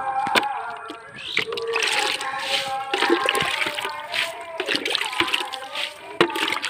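Water poured from a plastic mug splashing onto leafy plants and the ground beneath, starting about a second and a half in.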